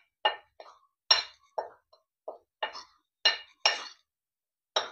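Steel spoon clinking and scraping against a plate while stirring dry flour: about ten short, sharp clinks at an uneven pace.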